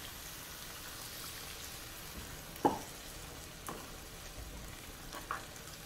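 A skillet of peppers, onion, beans and corn, with water just poured in, sizzling softly and steadily in a cast iron pan, with a few short sharp pops about two and a half, three and a half and five seconds in.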